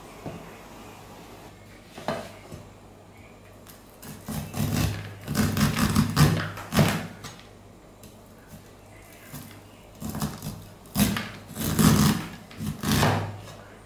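A cleaver slicing kernels off a sweetcorn cob against a wooden cutting board: a run of scraping, cutting strokes about four seconds in, then a second run about ten seconds in.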